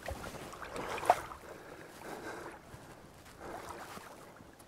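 River water splashing and sloshing around a landing net held in the current, with one sharp splash or knock about a second in.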